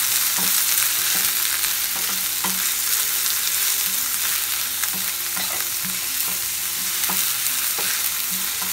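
Chopped onions sizzling as they sauté in hot oil in a stainless steel frying pan. A wooden spoon stirs them, knocking and scraping against the pan at irregular intervals.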